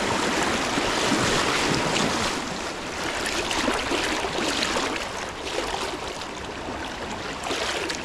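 Shallow, fast-flowing river rushing over stones, a steady noise, with wind buffeting the microphone.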